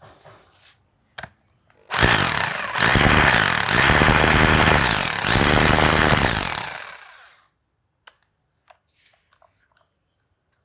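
Hilti TE 3-ML hammer drill running loudly for about five seconds, then winding down. A few light handling clicks come before and after.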